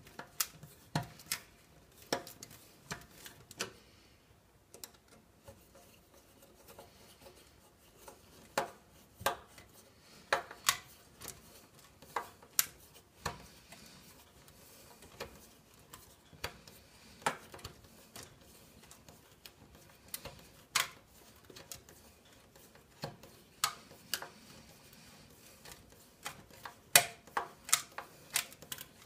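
Screwdriver turning the triangle-head screws back into a toaster's base plate: irregular sharp metallic clicks and ticks as the blade works in the screw heads and knocks on the plate, bunched more closely near the end.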